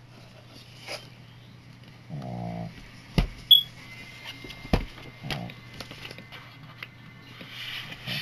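A plastic Blu-ray case and its packaging being handled and set down: a few sharp clicks and knocks, the loudest about three and a half seconds in. A short voice-like sound comes about two seconds in, over a steady low hum.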